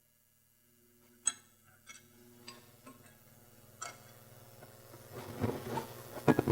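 A few separate light metallic clicks from a pair of forged farrier's tongs being handled and worked on their freshly set rivet, with a faint rustle building toward the end.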